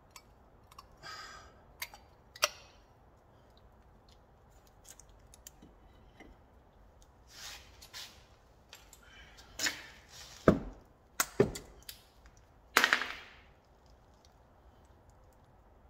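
Metal clicks and knocks of brake pads and a brake caliper being handled and fitted, with a few louder sharp clacks between about ten and thirteen seconds in.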